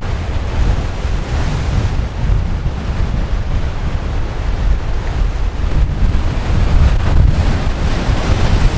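Wind buffeting the microphone, a loud, uneven rumble over a steady rushing noise.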